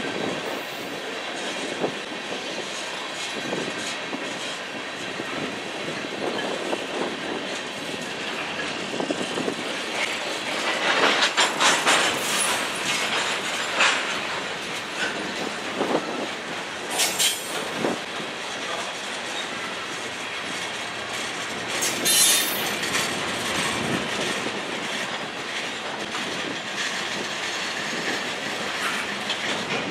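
Freight cars of a passing train rolling by: a steady rumble with wheels clicking over the rail joints as tank cars and covered hoppers go past. Several short bursts of high-pitched wheel squeal stand out around the middle, and these are the loudest moments.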